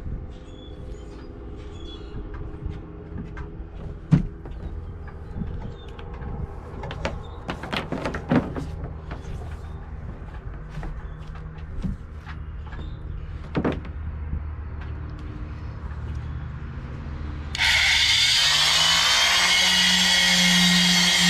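A square-pad electric palm sander switches on suddenly near the end and runs steadily on a wooden cabinet top, its tone rising briefly as the motor spins up. Before that come light clicks and knocks of extension cords being handled and plugged together.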